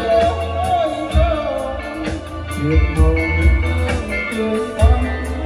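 Live band of electric bass, electric guitar and keyboards playing a slow Vietnamese song, amplified through large PA speakers, with a heavy pulsing bass line under a melodic lead.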